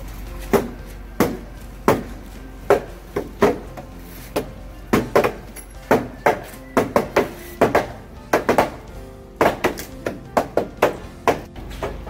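Mallet blows knocking timber beams into their joints on a wooden house frame. The sharp knocks come about one every 0.7 seconds at first, then faster and in uneven clusters from about five seconds in, with background music underneath.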